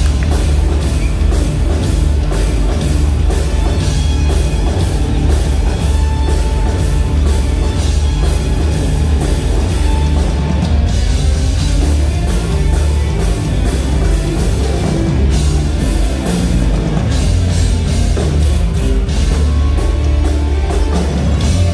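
Live rock band playing loudly, in a heavy-metal vein: a pounding drum kit and heavy bass under electric guitars and keytar.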